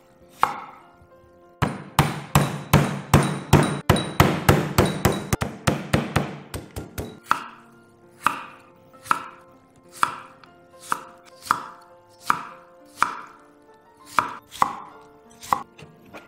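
Kitchen knife chopping cucumber on a wooden cutting board. After a couple of single knocks there is a fast run of chops, about five a second, for several seconds. It then slows to single cuts about every three-quarters of a second, each a sharp knock on the board.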